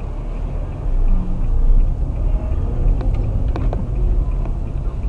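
Car driving: a steady low engine and road rumble, with a few faint clicks about three to four seconds in.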